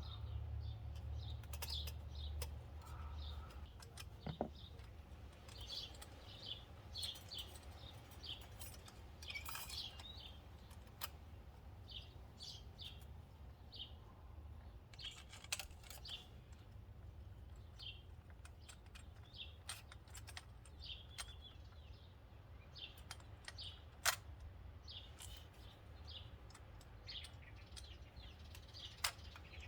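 Small birds chirping in short, scattered calls, with a few sharp clicks and a low steady hum underneath.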